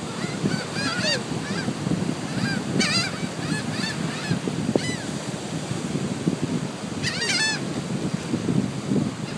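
Gulls calling in short bursts of quick repeated notes, about four times, over a steady low rush of wind and surf.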